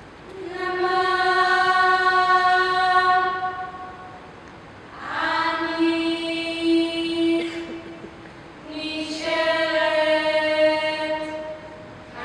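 A woman's voice singing three long, wordless held notes with short breaths between them. The last note is a little lower than the first two.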